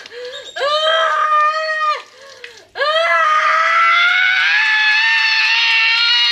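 A person screaming during an exorcism: a couple of shorter high cries, then from about three seconds in one long wail that slowly rises in pitch.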